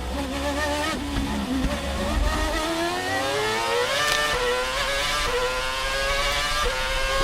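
2011 Formula 1 car's 2.4-litre V8 engine, revving toward an 18,000 rpm limit. It runs at low revs with a couple of downshifts in the first two seconds, then accelerates hard, the pitch climbing steeply and dipping briefly at each upshift, about once a second.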